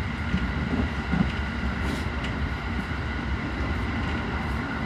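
Running noise of a JR Central local electric train heard from inside the car: a steady low rumble with faint steady high tones above it.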